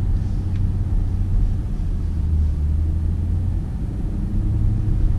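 Low, steady rumble of a BMW X5 xDrive50i's twin-turbo V8 running at low speed, heard inside the cabin.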